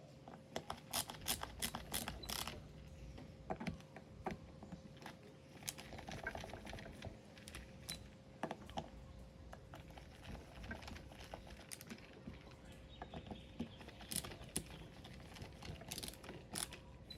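Irregular small clicks and taps of metal reel parts and tools being handled while a Shimano Tiagra 130 big-game fishing reel is taken apart and reassembled.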